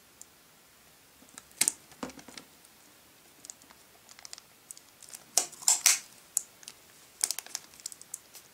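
Clear plastic sticky tape being pulled off its roll and wrapped around a plastic tube: scattered short crackling rips, the loudest cluster about five to six seconds in.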